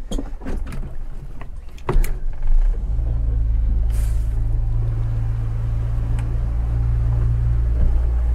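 Small boat's engine being started at the helm: a few clicks and knocks, then the engine fires about two seconds in and settles into a steady low running note.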